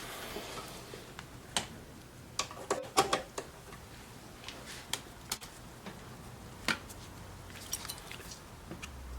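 Scattered light clicks and taps of small hard parts being handled, with a quick cluster of sharper clicks about three seconds in.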